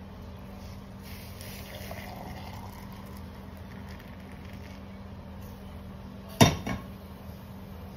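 Hot liquid poured into a cup, a hissing pour whose pitch rises as the cup fills, over a steady low hum. About six seconds in comes a single loud metal clank, as of a pan or lid being set down.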